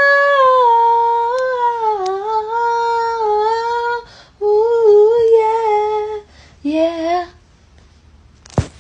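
A high voice humming a slow tune in long held notes, in three phrases broken by short pauses, stopping about seven seconds in. A single click follows near the end.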